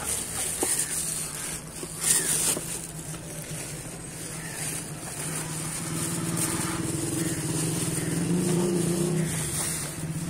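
A motor vehicle engine running steadily, growing louder in the second half and easing off near the end, with a few knocks and rustles of a cardboard carton being handled early on.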